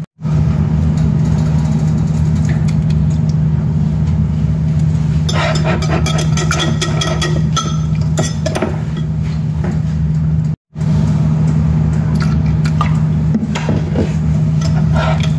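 A wire whisk clinks and scrapes against a glass measuring jug as a liquid mixture is whisked. Under it runs a loud, steady low machine hum that cuts out briefly about ten seconds in.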